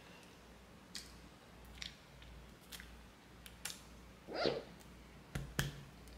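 A woman's soft mouth clicks, then a short, low burp about four and a half seconds in, then two sharp clicks near the end.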